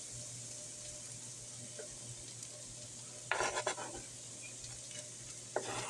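Ground beef sizzling steadily in a frying pan. Two short, louder bursts of scraping come about halfway through and again near the end, as diced onion is scraped off a plastic cutting board into the pan.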